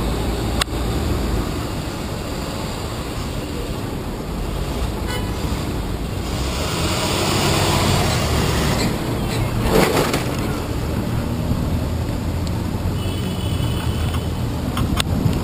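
City street traffic at an intersection: a steady low rumble of cars and taxis going by, with a louder rush of noise about halfway through as a box truck passes close. A few sharp clicks are heard.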